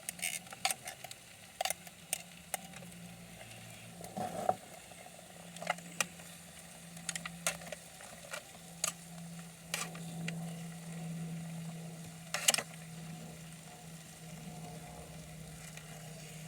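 Scattered clicks and knocks of a utensil against the metal pan of a 12-volt RoadPro roaster as peas and carrots are added and stirred in beside the cooking chicken. Faint sizzling and a steady low hum run underneath.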